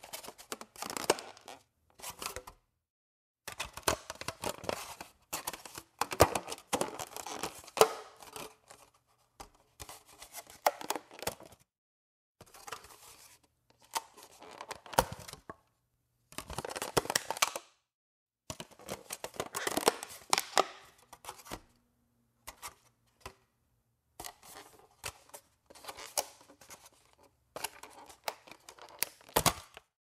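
Plastic food container lid being opened and closed again and again: crackling, crinkling plastic with sharp clicks and snaps, in bursts of a second or two separated by short pauses.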